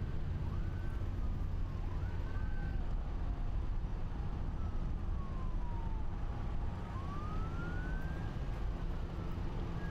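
Emergency vehicle sirens wailing, slowly rising and falling in pitch, over the steady low rumble of heavy, slow highway traffic.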